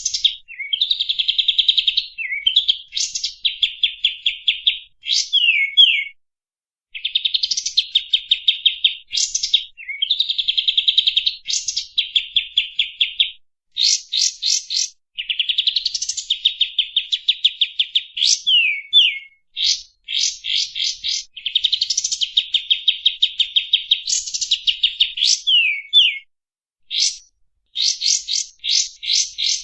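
Kapas tembak songbird singing vigorously: phrases of rapid trilled notes broken by sharp rising whistles, each phrase a second or two long with short pauses between, repeated over and over.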